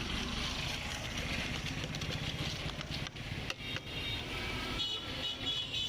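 Busy street traffic: vehicle engines running, with a steady clatter of small clicks and a high pitched tone near the end.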